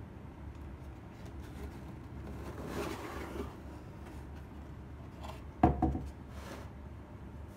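Cardboard gift box being opened by hand: a soft scrape and rustle as the lid is lifted, then a sharp knock about three-quarters of the way through, with a couple of smaller knocks right after, over a low steady hum.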